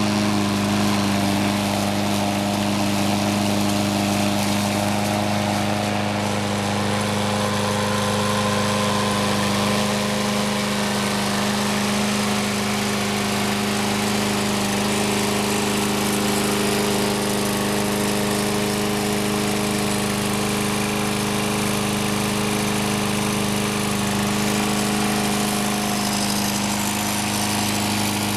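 Troy-Bilt XP 21-inch walk-behind mower's 7.75 gross torque Briggs & Stratton OHV single-cylinder engine running steadily at an even, unchanging speed.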